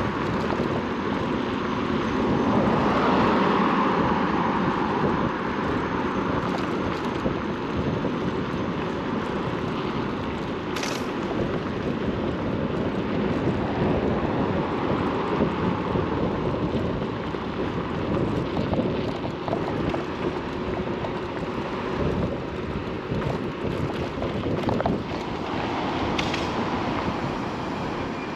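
Steady wind rushing over the microphone, mixed with road noise, while riding an Inmotion RS electric scooter.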